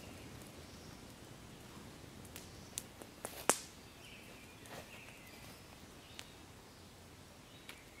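Campfire crackling over a faint steady hiss, with scattered sharp pops; the loudest pop comes about three and a half seconds in.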